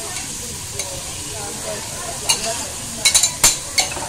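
Scallops sizzling in oil on a flat steel griddle, a steady hiss. Sharp metallic clinks of steel spatulas striking and scraping the griddle plate come a little after two seconds in, in a quick cluster around three seconds, and once more near the end.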